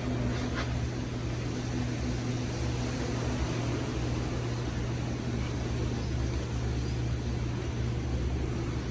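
44-inch Minka Aire Supra ceiling fan running steadily, a low motor hum under the even whoosh of moving air, with its capacitor newly replaced so that it runs at proper speed.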